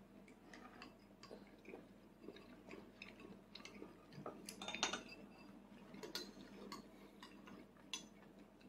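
Quiet eating sounds: a toddler's fork clicking and scraping against a plate, with soft chewing, and a louder few clicks about five seconds in.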